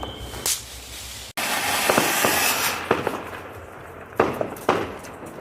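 Diwali firecrackers going off. There is a pop about half a second in, then a hissing, crackling spell of about a second and a half, then two sharp bangs near the end.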